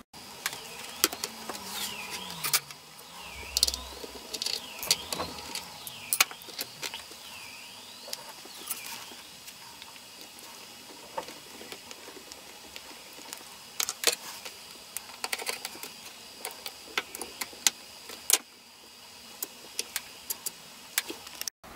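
Scattered small clicks and taps of hands handling a laptop's metal display hinge and plastic casing, with a few short high chirps in the first several seconds.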